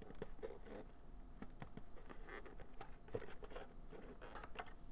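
Fingers working open the lid flap of a cardboard mug box: a run of short, irregular scrapes, taps and rustles of paperboard.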